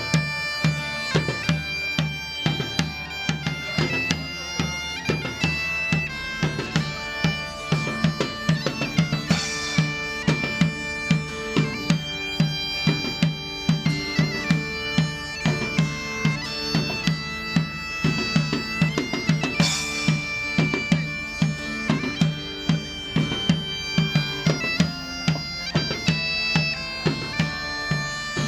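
Bagpipe tune played over a steady low drone, with drums beating a regular rhythm underneath.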